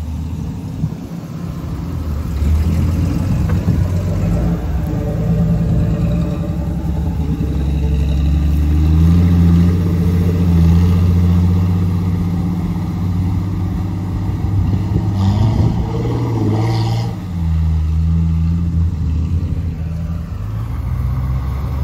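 Off-road 4x4 engine running and revving as it works through a muddy creek crossing; the engine note swells and eases a few times.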